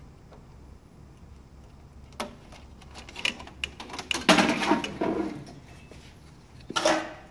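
Clicks, knocks and clatter of an HP Designjet 5500's vacuum fan unit being worked loose and pulled out of the printer, its housing and cables rattling against the frame. There is a single click about two seconds in, a louder run of clattering in the middle, and a short burst near the end.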